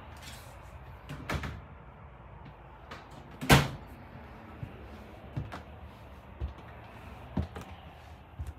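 Footsteps thudding on the interior steps of a fifth-wheel trailer, about one a second, with one sharp knock about three and a half seconds in that is the loudest sound.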